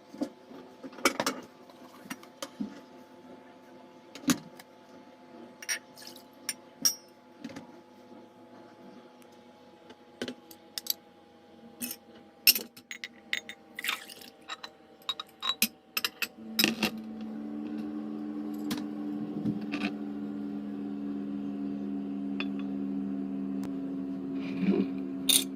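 Spoon clinking and tapping against a cup or glass in irregular strokes, typical of stirring a drink. A steady low hum comes in about two-thirds of the way through.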